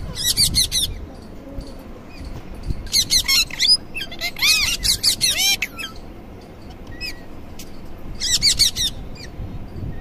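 Indian ringneck parakeet screeching in quick runs of shrill, arching calls. There are four bursts: near the start, around three seconds in, from about four to five and a half seconds, and near the end, with one short call between them.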